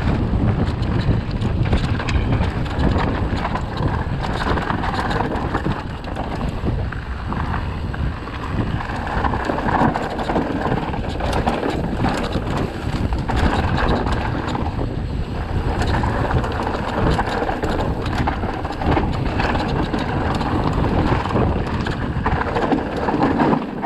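Wind rushing over the microphone of a moving electric mountain bike, with the tyres rumbling and the bike rattling over a rough, stony track in frequent small knocks.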